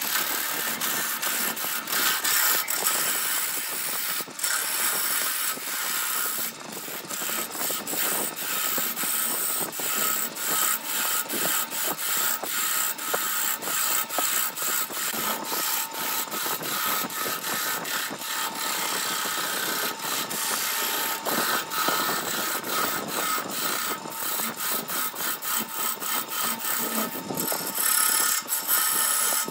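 Wood lathe running while a hand-held turning tool cuts the face of a spinning segmented wood blank: a continuous scraping cut with many sharp clicks and a faint steady whine from the lathe.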